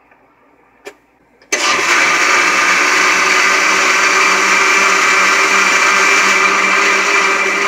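A click, then about a second and a half in a countertop blender with a glass jar starts up. Its motor runs steadily and loudly, blending strained canned fruit cocktail and coffee creamer into a smoothie.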